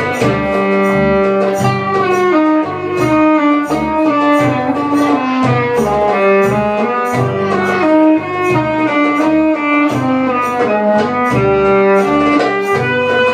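Live belly dance music from a small band: a violin melody over a plucked lute and bass guitar, with a steady drum beat.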